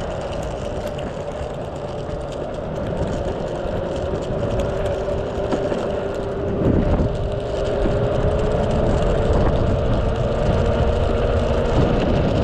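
Mototec 600W single-motor belt-drive electric skateboard under way: a steady motor and belt whine that climbs slowly in pitch as it gathers speed, over the rumble of the wheels on rough, cracked asphalt. There is one low thump about halfway through.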